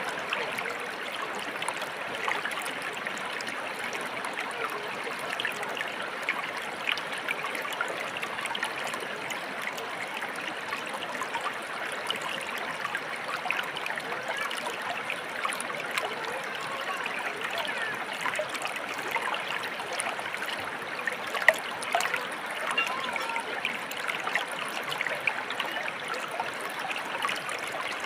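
Shallow stream water flowing and trickling steadily, with small gurgles. One brief sharp tap or splash stands out about three quarters of the way through.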